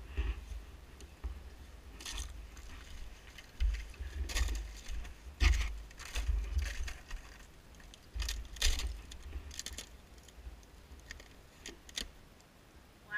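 Footsteps crunching thin ice and dry brush at a pond's edge: irregular crackles and snaps, with a gusty low rumble on the microphone.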